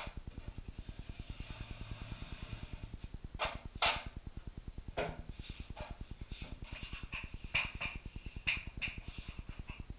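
Sharp clicks and knocks from handling drywall tools and metal corner bead, then a run of high squeaks near the end, over a steady fast low pulsing.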